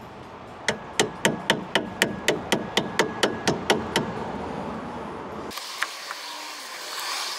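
A hammer striking metal in a quick run of about fourteen sharp blows, roughly four a second, stopping about four seconds in; then only a few faint metal clinks.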